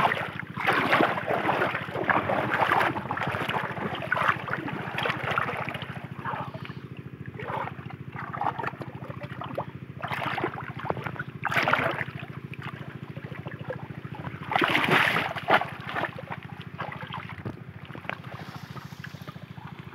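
Shallow muddy water splashing in irregular bursts as a bamboo polo fish trap is pressed into it and a hand gropes inside for fish, busiest in the first few seconds, with the loudest splashes around eleven and fifteen seconds in. A steady low hum runs underneath.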